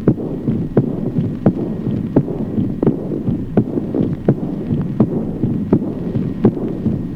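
Recorded heart sounds in aortic insufficiency (aortic regurgitation): a clear, accentuated second heart sound, followed at once by a diastolic murmur of flowing timbre, beat after beat. The beats come a little faster than one a second, as sharp clicks over a continuous low rushing murmur.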